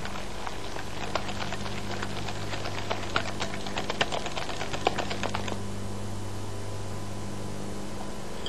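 Wire whisk clicking quickly and irregularly against a glass bowl as olive oil is beaten into a thick aioli emulsion. The clicking stops about five and a half seconds in, leaving a steady low hum.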